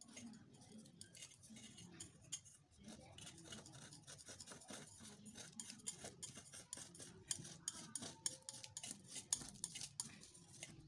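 Knife blade scraping and clicking against the inside of a stainless-steel bowl, loosening a steamed egg-and-cabbage cake from the sides. It makes a run of small, quick metallic clicks and scrapes that comes thicker in the second half.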